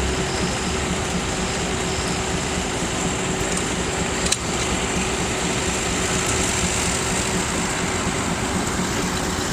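Sawmill driven by an Advance Rumley steam traction engine, the machinery running steadily with a constant hum. There is one sharp click about four seconds in.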